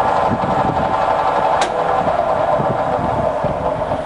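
Colchester Student 1800 centre lathe running steadily in gear at a spindle speed of 94 rpm, its motor and headstock gearing giving a steady hum made of many tones. One sharp click comes about one and a half seconds in.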